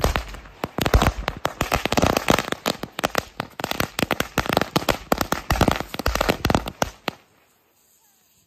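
A string of firecrackers going off on the ground: a rapid, uneven series of sharp bangs for about seven seconds that stops abruptly.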